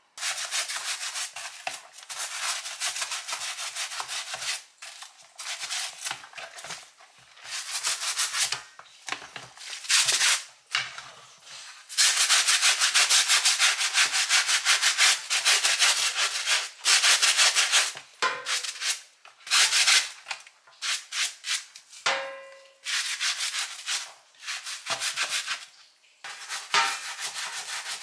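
A stiff plastic scrub brush scrubbing soapy rubber slides in a stainless steel sink, in runs of fast back-and-forth strokes with short breaks between them. A short squeak comes about two-thirds of the way through.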